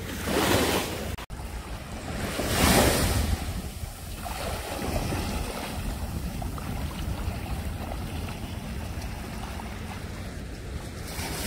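Small waves washing in shallow surf at the water's edge, with wind buffeting the microphone as a low rumble. The rush of water swells louder twice, about half a second in and near three seconds in.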